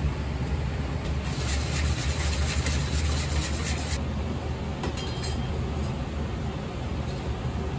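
A hand sifter and then a mesh sieve are worked over a large stainless-steel mixing bowl, sifting dry ingredients including cocoa powder. There is a fine scratchy rasp for the first few seconds and a few light taps about five seconds in, over a steady low hum.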